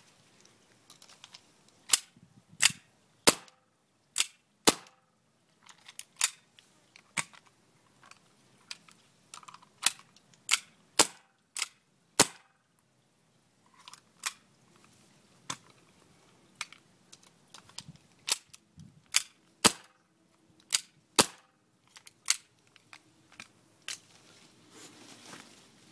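Airsoft 1911 gas blowback pistols dry-fired without BBs: about two dozen sharp shots, some single and some in quick pairs, with short pauses between strings.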